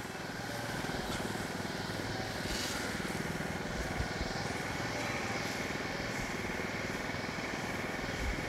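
Briggs & Stratton P4500 inverter generator with its 224 cc engine running steadily, heard from about 20 feet away. It is super quiet, measuring about 57 to 58 dB.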